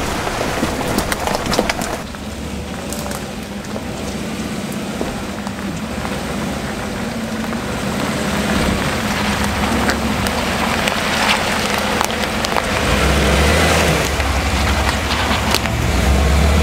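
Chevy Silverado 1500 pickup creeping along a dirt woods trail, with a burst of small knocks and crackles in the first two seconds. After that its low engine rumble grows much louder about 13 seconds in as the truck comes close and passes.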